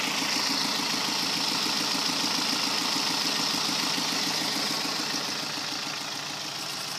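2010 Kia Forte SX's 2.4-litre four-cylinder engine idling steadily with a light, even rod knock from a spun number 3 connecting rod bearing. The knock is subtle rather than violent.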